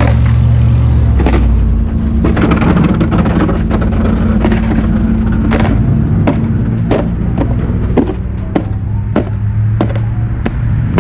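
A motor running steadily with a low hum, with a string of sharp clicks or knocks through it, coming more regularly in the second half.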